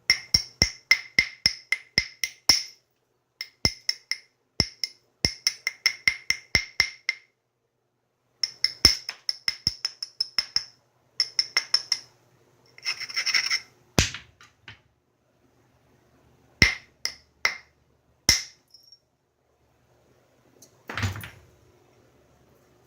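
Flintknapping: runs of quick, light taps on the stone, several a second, each with a short ringing ping at the same two pitches, broken by pauses. There is a brief scrape about thirteen seconds in and a duller rustle near the end.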